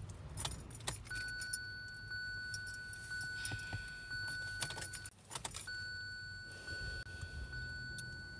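Ignition key being turned again and again in a 2017 Kia Sorento that won't start: keys jangle and click in the ignition with no engine cranking. A steady high electronic warning tone sounds from about a second in, cuts out briefly around five seconds in as the key is cycled, then comes back.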